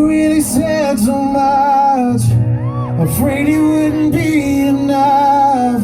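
A male singer performing a rock ballad live with his band, holding long sung notes that bend in pitch over steady guitar and band accompaniment.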